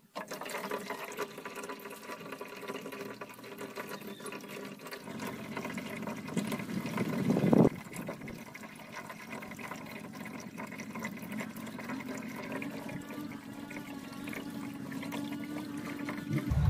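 Water being drained out of a small glass tank through a hose, running and trickling steadily. The flow swells louder about seven seconds in, then drops back suddenly.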